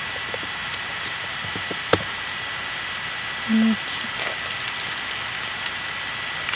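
Steady hiss with a thin high whine from the recording, with scattered faint ticks and one sharp click about two seconds in. A brief low hum, like a closed-mouth "mm", comes about three and a half seconds in.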